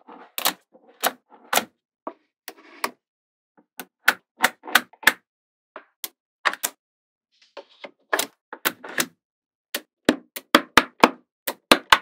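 Small magnetic balls clicking as strips of them are snapped into place: a long irregular run of sharp clicks, with softer rattling between some of them.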